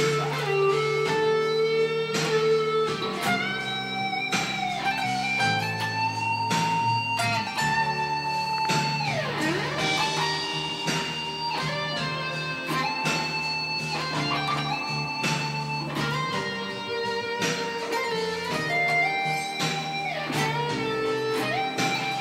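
Les Paul-style electric guitar playing a slow lead melody of long sustained notes with bends, sliding down in pitch about nine seconds in, over held low backing notes.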